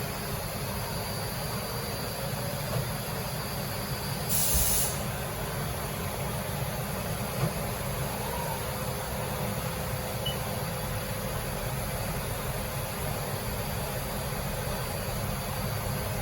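Steady mechanical hum of shop machinery, with one short burst of compressed-air hiss about four and a half seconds in.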